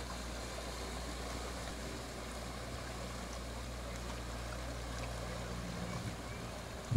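Small outboard motor on an inflatable dinghy running at a steady pitch, with an even hiss of water.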